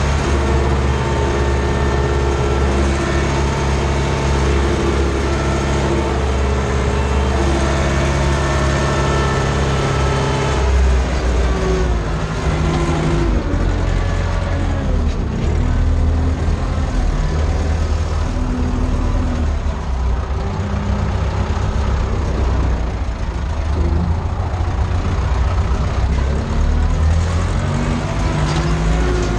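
Ursus C-360 tractor's four-cylinder diesel engine running under load while pulling a cultivator, heard from inside the cab. The engine note holds steady at first, then rises and falls in pitch from about a third of the way in.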